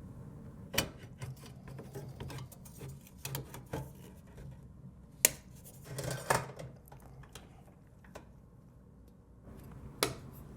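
Irregular sharp clicks and light metallic clatter from computer hardware and small parts being handled, with the loudest click about halfway through and another near the end.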